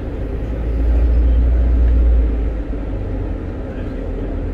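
Low rumble of a double-decker bus under way, heard from the upper deck; it swells about a second in and drops off sharply about two and a half seconds in.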